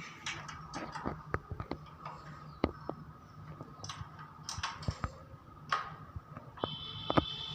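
Irregular light clicks and taps of metal door-closer parts and screws being handled and fitted by hand, over a steady low hum. Near the end comes a brief high whirring sound.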